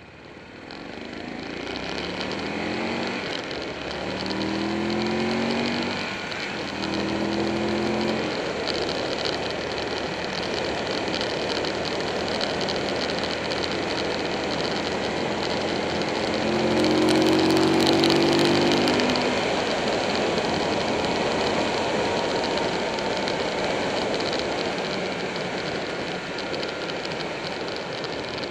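Buell 1125R's V-twin engine pulling up through the gears, its pitch climbing in steps during the first eight seconds and again about seventeen seconds in. Steady wind rush fills the rest.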